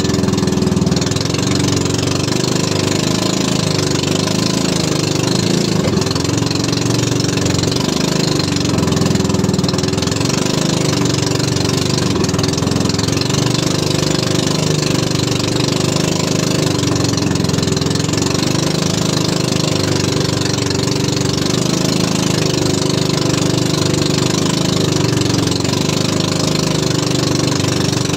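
A small fishing boat's engine runs steadily at an even pitch while the boat is under way.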